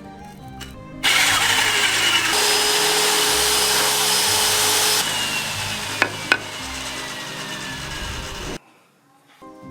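A power tool working bamboo: a loud, even grinding whir that starts about a second in, with a faint whine sliding slowly down in pitch. It stops suddenly near the end, and two sharp clicks come a little after the middle.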